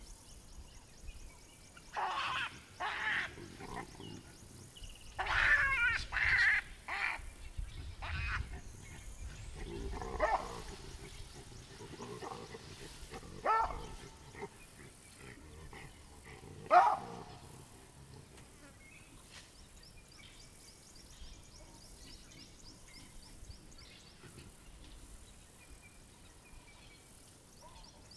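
Baboons screaming and barking in a fight: a run of harsh calls in the first half, the loudest a single sharp cry about 17 seconds in. Afterwards an insect's rapid high ticking carries on.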